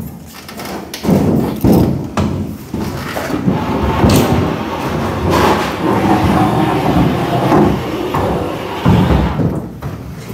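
Repeated knocks, thuds and scraping as a wardrobe is carried by several people and shifted into place on the floor.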